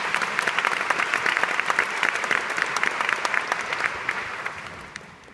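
Concert-hall audience applauding, many hands clapping at once; the clapping thins and dies away over the last second or so.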